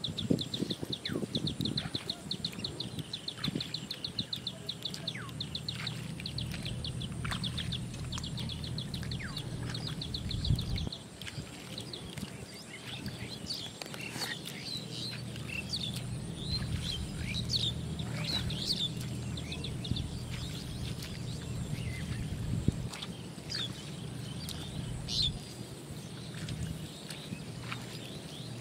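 Small birds chirping: a fast run of high chirps, about five a second, for the first nine seconds or so, then scattered single chirps, over steady low background noise.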